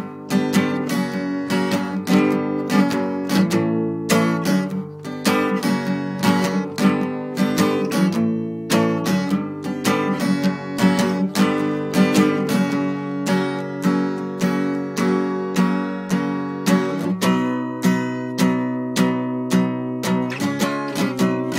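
Acoustic guitar music with no singing: chords strummed in a steady, even rhythm.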